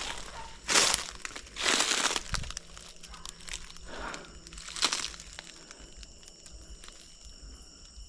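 Footsteps crunching through dry leaf litter and brush, with three louder crunches: one about a second in, a longer one around two seconds and one near five seconds, over faint rustling.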